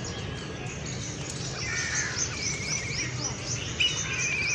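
Many small birds chirping together in a busy chorus of short, high, quickly repeated downward chirps. A rapid, buzzy trill comes in twice, once just before the middle and again near the end.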